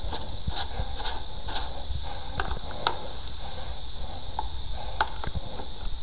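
Scattered scrapes and sharp clicks as a metal rod is worked against a plugged drain pipe end, over a steady high hiss.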